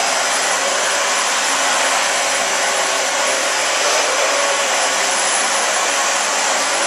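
Dyson DC40 Animal upright vacuum cleaner running steadily while it is pushed over a rug: a loud, even rushing noise with a faint high whine.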